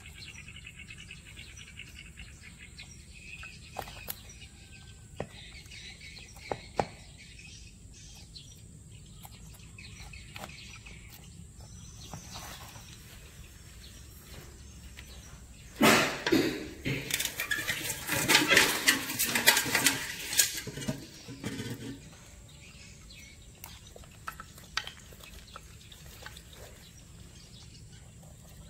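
Birds chirping over a steady high-pitched background tone. About 16 s in come some five seconds of loud scraping and clattering as live mud crabs are handled on a wooden board.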